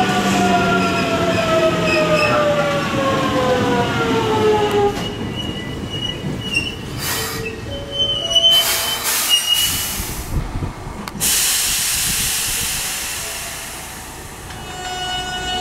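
Hankyu 8000 series train's Toshiba GTO VVVF inverter whining and falling steadily in pitch as the train brakes. This lasts about five seconds, followed by wheel and brake squeal as it slows to a stop. About 11 s in, a hiss of air starts and fades, and near the end a steady inverter tone sets in.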